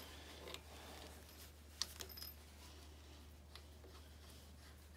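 Faint clicks and light scraping of a brass garden-hose coupling being threaded by hand onto a hose reel's metal inlet fitting, with the sharpest click a little under two seconds in, over a steady low hum.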